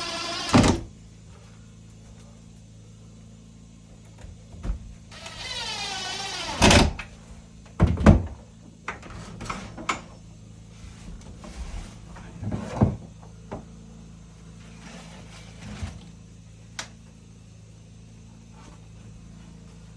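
A small power tool, likely a cordless drill, whirs briefly twice, its pitch sweeping up and down. Several sharp knocks and wooden thuds follow, the loudest at about 7 and 8 seconds.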